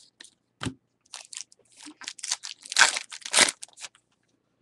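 Foil wrapper of a Bowman baseball card pack being torn open and crinkled: a run of short crinkling crunches, loudest about three seconds in, stopping shortly after.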